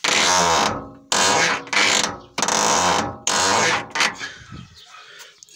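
Lanos car door squeaking and grating loudly as it is swung, three drawn-out creaks of about a second each. The door mechanism has just been sprayed with WD-40, which has not cured the squeak: it squeaks even worse.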